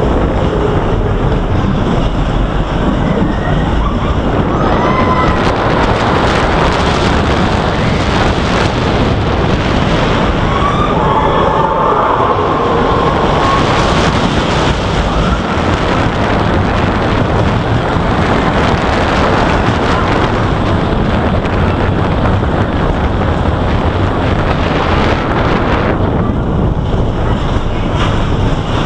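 Steel roller coaster train running at speed along its track, a steady rumbling rush with loud wind buffeting the microphone.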